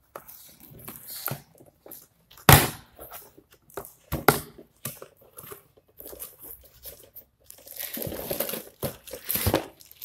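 Cardboard carton being unpacked: a box cutter slits the packing tape and the flaps are pulled open, with scraping and two loud, sharp sounds about two and a half and four seconds in. Near the end a thin plastic bag crinkles as the wrapped bowls inside are handled.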